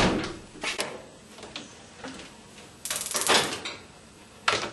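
A refrigerator door shut with a knock, then kitchen handling sounds: a light click, a short rattling scrape about three seconds in, and another sharp knock near the end as pots are handled at a gas stove.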